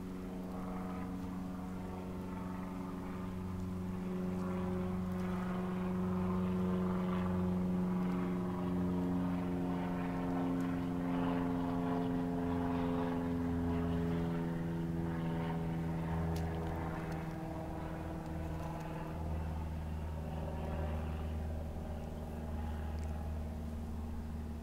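A steady engine drone with a slowly drifting pitch, growing louder over the first several seconds and then easing off slowly.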